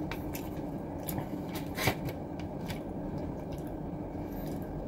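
Close-up eating sounds: sushi being chewed with the mouth closed, and a few light clicks of wooden chopsticks against a plastic food tray, the sharpest about two seconds in, over a steady low room hum.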